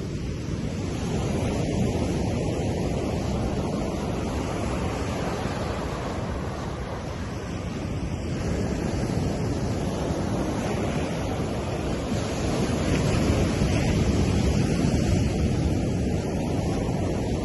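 Ocean surf breaking on a sandy beach: a continuous wash of waves that swells and eases, loudest about three-quarters of the way through.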